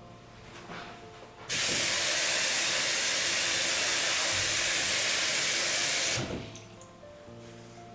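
A loud steady hiss that starts suddenly about a second and a half in, holds for nearly five seconds and then dies away quickly.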